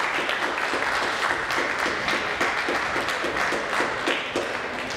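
Audience applauding, a dense spatter of many hands clapping that eases off near the end.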